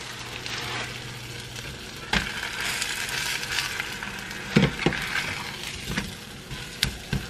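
Food sizzling in a hot nonstick frying pan, a steady hiss that grows louder about two seconds in, with a few sharp taps of a spatula against the pan.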